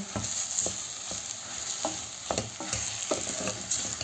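A wooden spoon stirring mashed boiled potato and onions frying in oil in a stainless steel pot: a steady sizzle with irregular knocks and scrapes of the spoon against the pot.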